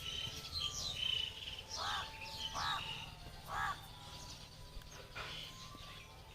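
Birds calling over a faint steady background: a few quick high chirps, then three short calls in a row, and scattered fainter chirps near the end.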